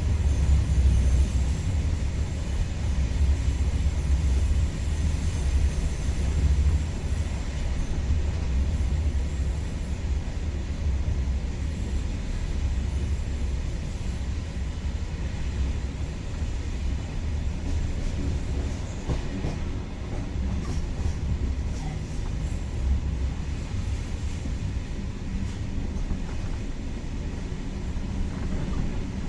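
InterCity train running: a steady low rumble, heaviest over the first several seconds, with a faint high whine early on and a few sharp clicks about two-thirds of the way through.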